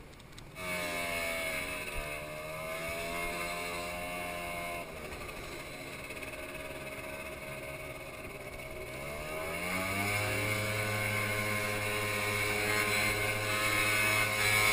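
Motor scooter engine running as it is ridden. It grows louder about half a second in as the throttle opens, eases off in the middle, and revs up about ten seconds in, running harder to the end.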